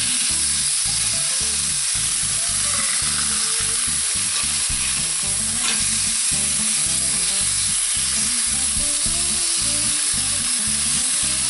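Braising steaks sizzling steadily as they sear in hot oil in a stainless steel frying pan while being turned with tongs, with a single sharp click about halfway through.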